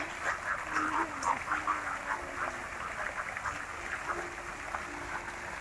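A chorus of short, rapid animal calls, thickest in the first couple of seconds, over the steady splashing of pond fountains.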